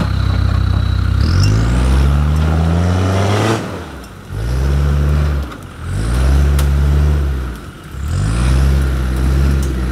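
Land Rover Discovery TD5's five-cylinder turbodiesel revving hard under load in about four bursts, the first rising steadily in pitch, with brief drops off the throttle between them.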